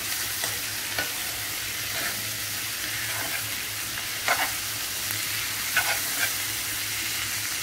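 Prawns frying in oil with a steady sizzle in a metal pot, while a metal spoon stirs them and now and then scrapes and clinks against the pan.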